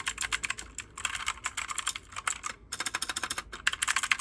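Keys of a T8 RGB mechanical keyboard being pressed rapidly, a fast run of clacks in several quick bursts with short pauses between them.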